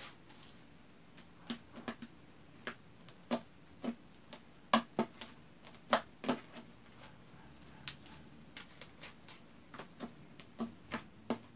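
Homemade glue-and-detergent slime being stretched and pressed on a tabletop by hand, giving off irregular sharp sticky clicks and pops, one or two a second.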